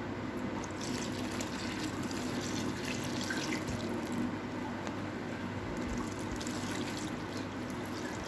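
Coconut milk pouring steadily from a container into a bowl of flour, with a hand squishing and mixing the wet flour into batter.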